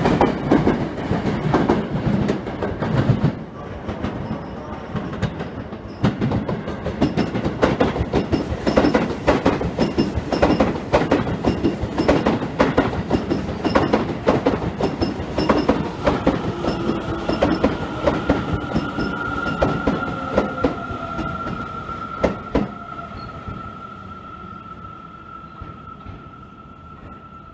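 Electric commuter trains passing close by, one of them a Seibu 30000 series, their wheels clattering rapidly over rail joints and points. About halfway through, a steady high squeal sets in over the clatter. The sound fades away near the end.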